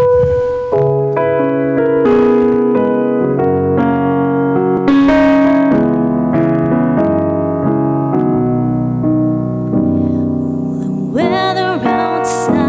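Electric keyboard playing a slow introduction of sustained chords. A woman's singing voice, with vibrato, comes in near the end.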